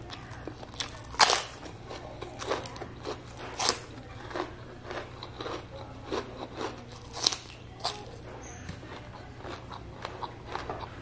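Close-miked eating: a run of sharp crunching bites into crisp food and raw cucumber, with chewing between. The loudest crunch comes about a second in, with further strong ones near four and seven seconds.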